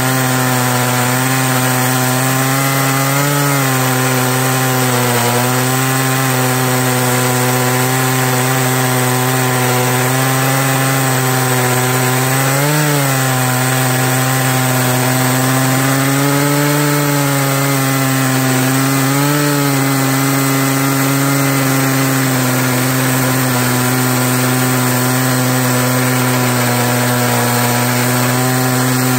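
Stihl MS880 two-stroke chainsaw on an Alaskan chainsaw mill, running hard through a beech log. Its engine note holds steady under load, wavering slightly in pitch now and then as the cut loads and eases.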